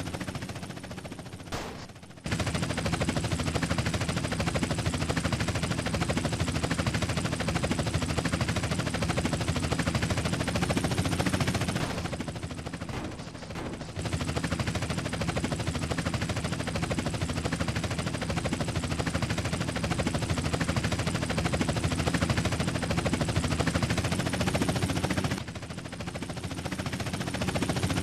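Sound effect of sustained rapid automatic gunfire, such as a helicopter-mounted machine gun, in long bursts of about ten seconds with short pauses between.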